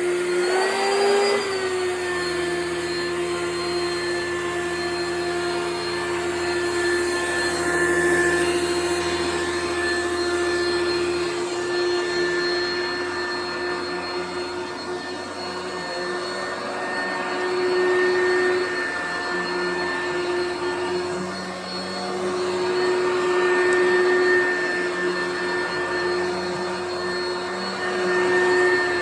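Vacuum cleaner running continuously, its motor whine holding a steady pitch apart from a brief rise about a second in. The level swells and eases a few times.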